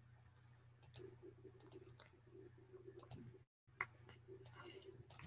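Faint scattered clicks from computer input devices during digital painting, several coming in close pairs, over a low steady hum.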